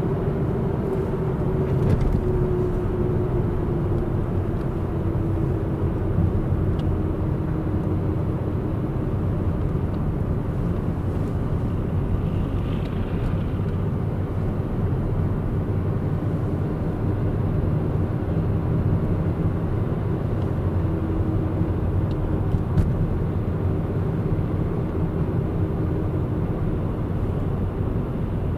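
Interior noise of a moving car: steady engine hum and tyre rumble on a snow-dusted road, heard from inside the cabin. The hum dips slightly in pitch during the first few seconds, and a few faint ticks sound over it.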